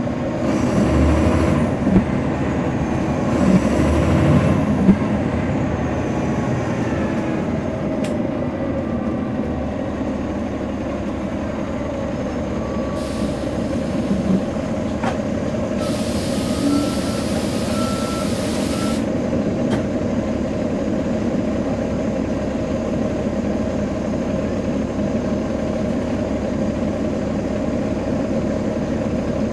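Caterpillar C13 ACERT diesel engine of a NABI 40-foot transit bus, heard from inside the cabin, running steadily and somewhat louder in the first five seconds. About halfway through come two bursts of compressed-air hiss, the second lasting about three seconds with a faint beeping tone under it.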